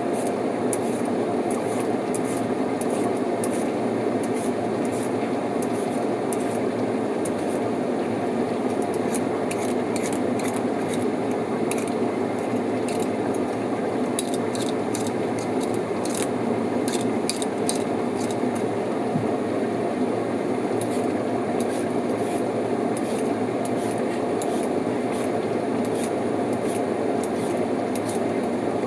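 Kitchen work sounds: repeated light scraping and clicking over a steady low rushing noise, busiest in the middle stretch.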